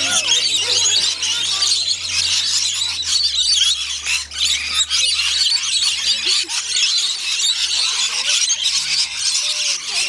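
A large flock of rainbow lorikeets screeching and chattering nonstop as they feed, a dense, high-pitched din of overlapping calls.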